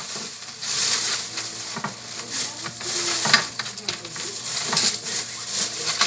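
Food cooking in a pot with a steady hiss, and a utensil clicking and scraping against the pot as it is stirred.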